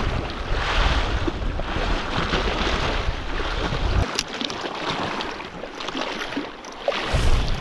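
Small sea waves washing and splashing against shoreline rocks, with wind buffeting the microphone. The low wind rumble drops away about four seconds in and returns near the end.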